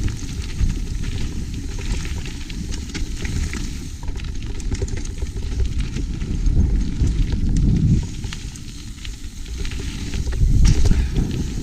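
Mountain bike ridden fast down a wet trail, heard from a GoPro on the rider: wind buffeting the microphone in heavy gusts, tyres crackling over the wet surface, and many sharp rattles and clicks from the bike.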